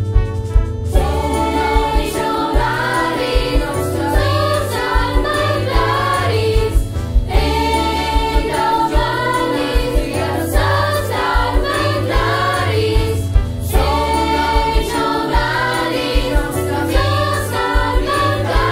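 A choir of young voices singing a school anthem in Catalan over a pop backing track with a steady beat; the voices come in about a second in.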